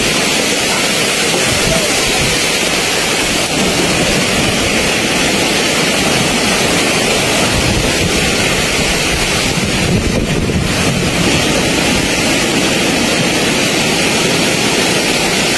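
Typhoon wind and big waves: a loud, steady rush of noise, with wind buffeting the microphone.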